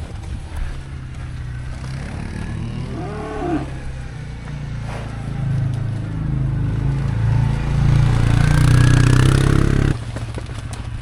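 Cattle mooing, the loudest call a long bellow that swells toward the end and breaks off about ten seconds in, over a steady low hum.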